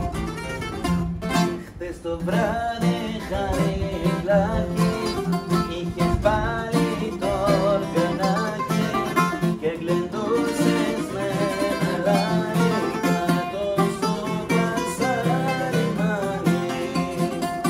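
Acoustic guitar and Greek bouzouki playing a Greek song together, the guitar strumming a steady accompaniment under the bouzouki's plucked melody.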